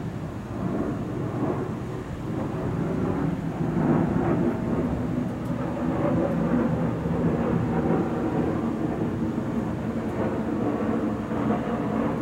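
Long rolling thunder from a nearby thunderstorm, a low continuous rumble that swells about two seconds in and keeps rolling.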